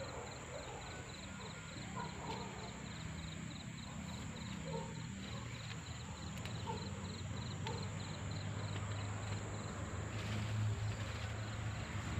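Quiet outdoor garden ambience of insects calling. A steady high-pitched whine runs under a rapid, evenly pulsed chirp that stops about three-quarters of the way through, over a low rumble.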